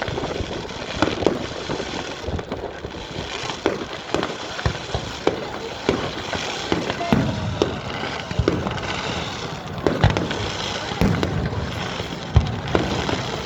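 Fireworks display going off: a string of bangs, one every second or so, over a continuous crackle.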